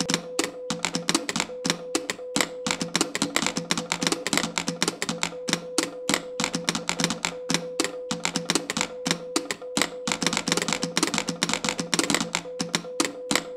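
A row of telegraph straight keys clicking rapidly and unevenly, tapping out Morse code, over a steady beep tone that switches on and off.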